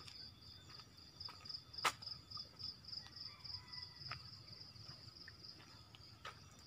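Forest insects chirring: a steady, finely pulsing high trill throughout, with a few faint sharp clicks, the clearest about two seconds in.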